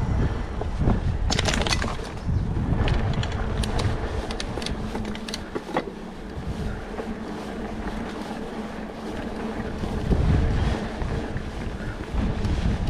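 Trek Stache hardtail mountain bike riding a dirt singletrack: its plus-size tyres rumble on the trail and wind buffets the microphone, with scattered clicks and rattles from the bike between about one and six seconds in. The rumble eases for a few seconds in the middle, then picks up again.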